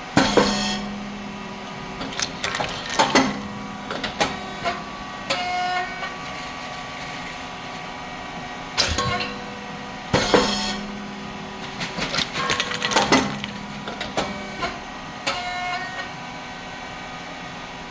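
Rice cake popping machine with titanium-coated moulds running its cycle: a sharp pop as the heated moulds open and release a batch of thin crispy rice cakes, followed by mechanical clanks and short ringing tones. The pattern repeats about every ten seconds.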